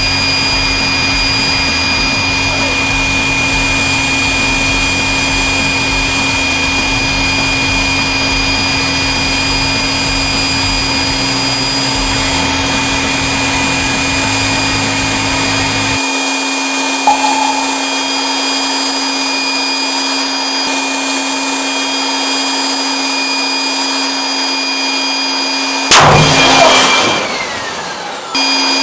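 Electric air pump running steadily with a constant hum and whine, inflating a giant balloon. Its low rumble drops away partway through. Near the end a sudden loud noise breaks in and fades over about two seconds.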